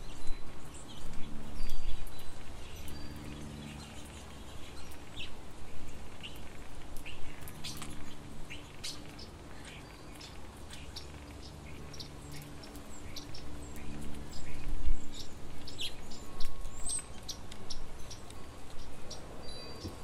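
Small songbirds chirping: many short, scattered high chirps and ticks, over a faint low hum.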